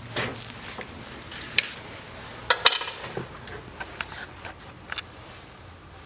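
Scattered metallic clicks and clinks of hand work at a manual gearbox, with a sharp clatter of metal about two and a half seconds in.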